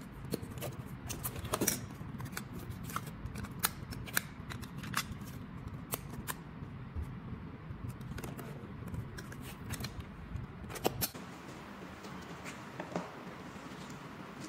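Sharp plastic clicks and rattles as AA batteries are pressed into a small plastic battery box and the box and its switch are handled. The clicks thin out after about eleven seconds, over a steady low hum.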